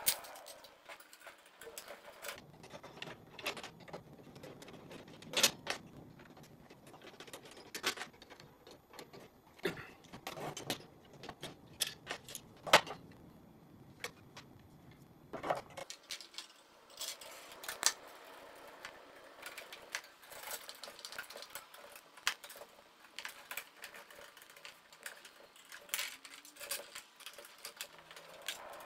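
Hands swapping the cooling fans on an ASIC miner: irregular clicks, taps and light metallic rattles of screws, plastic fan housings and wire connectors being handled on a table, with a few sharper knocks, the loudest about halfway through.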